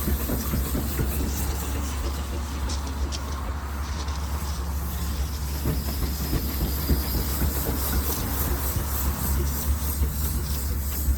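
Steam engine running: a steady low rumble with a hiss of steam and scattered small clicks and knocks.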